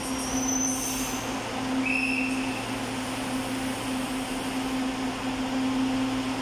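Metro train standing at a platform with a steady electrical hum over a constant rushing noise, while its doors open for boarding. A brief high tone sounds about two seconds in.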